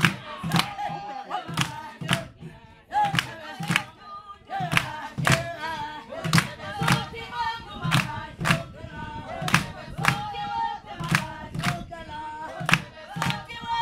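A group of men and women singing together in call-and-response style, with hand claps keeping a steady beat about twice a second, for a dancer.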